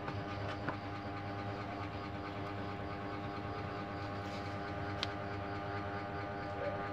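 Steady low mechanical hum made of several even tones, with small handling clicks, the sharpest about five seconds in.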